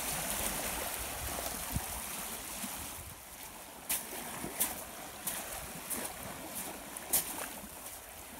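Small river waves lapping and washing on a sandy, pebbly shore, a steady wash of water with some wind rumble at first. From about four seconds in, a run of short, crisp crunches comes about every two-thirds of a second.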